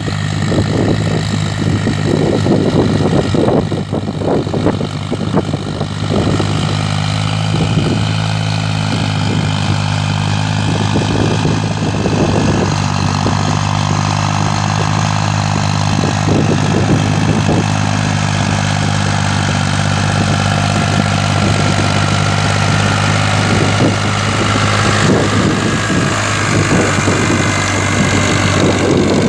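Ford 3630 tractor's three-cylinder diesel engine running steadily under load while it drives a rotavator tilling soil.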